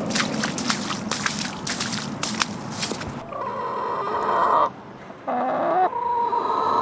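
Rhode Island Red-cross laying hens clucking and calling: quick clicks and rustling through the first half, then several drawn-out, wavering calls in the second half.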